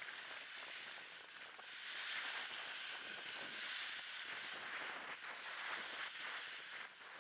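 Small waves breaking and washing up a shelly sand beach, mixed with wind on the microphone, swelling about two seconds in. The sound is thin and hissy, its low end removed by a high-pass filter and noise reduction.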